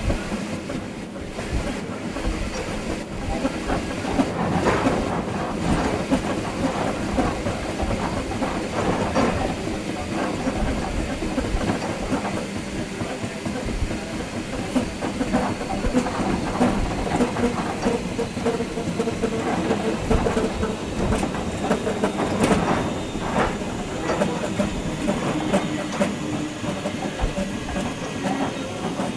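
Train running along the track, heard from the driver's cab: a steady rumble and hiss with scattered clicks of wheels over rail joints.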